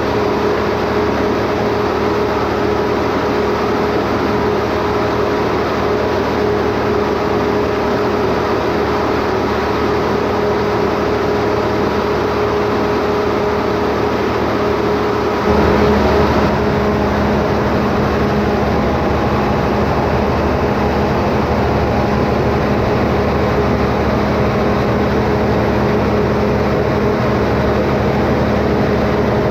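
Standby generator engine running steadily. About halfway through its sound changes abruptly, with a brief jump in loudness, and it then runs on with a deeper, fuller note.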